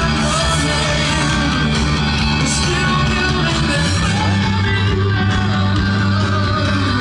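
Rock music with guitar and a steady bass line that moves to a lower note about four seconds in.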